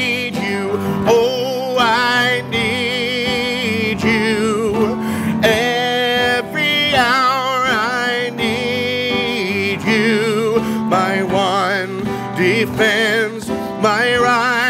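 Man singing a worship song with wide vibrato on held notes, accompanied by an upright piano.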